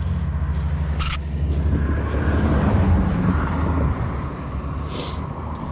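Engine of a passing motor vehicle with a low drone that grows louder to a peak about three seconds in, then fades away. A short sharp click about a second in.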